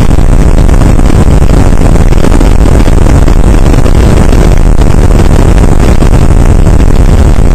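Skiff's outboard motor running steadily under way, very loud and even, with no change in pitch.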